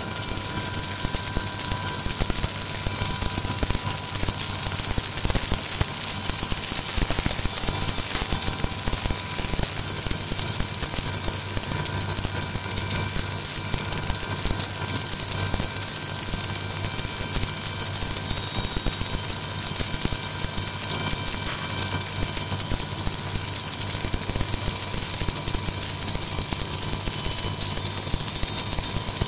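Submerged arc welding rig laying a filler pass on a circular joint: a steady, unbroken high hiss over a constant low electrical hum from the welding equipment.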